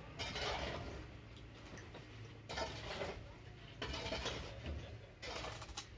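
Air-traffic-control radio static. Bursts of hiss start and stop abruptly several times, as transmissions key on and off without speech.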